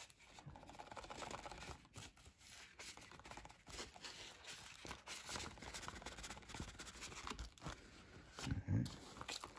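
Faint handling noise of a Blu-ray case being slid out of its cardboard slipcover: irregular rustling and scraping of cardboard and plastic with small clicks. A short low bump comes near the end.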